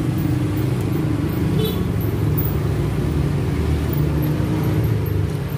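Road traffic: a steady low engine rumble from passing or idling motor vehicles.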